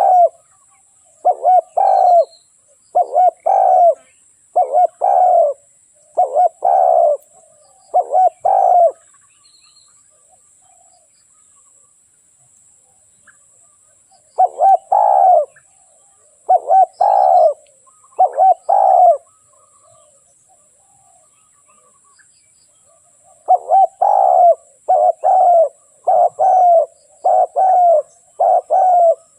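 Spotted dove cooing: repeated phrases of low coos in three bouts separated by pauses of about five seconds, the last bout quicker and longer.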